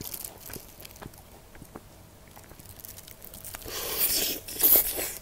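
Biting into a piece of sauced Korean fried chicken (yangnyeom): loud crisp crunches of the coating start a little under four seconds in. Before that there are only faint clicks of the food being handled.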